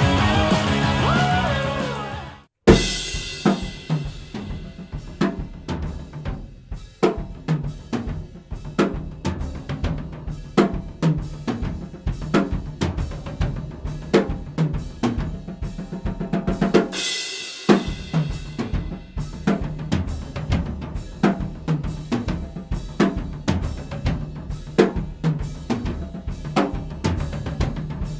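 Rock backing music fades out over the first two seconds. A moment later a Dixon Fuse Maple drum kit with Sabian cymbals starts being played with sticks: bass drum, snare, toms, hi-hat and cymbals in a steady groove. About seventeen seconds in there is a loud cymbal wash and a brief stop, then the groove picks up again.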